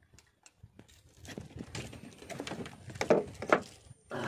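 Handling noise from fishing gear on a boat deck: a few faint clicks, then rustling and knocking as the handline and rig are worked, with two louder knocks about three seconds in.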